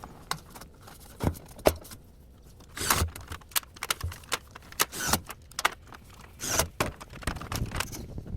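Irregular metallic clinks and knocks from hands-on work fitting a stovepipe chimney, a dozen or so scattered hits with the loudest near the start and middle.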